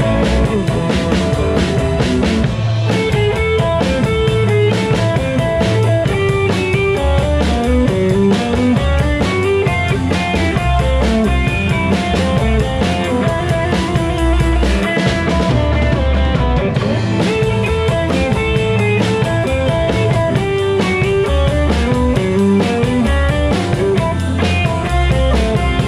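Live rock band playing loudly on drum kit, guitars and bass.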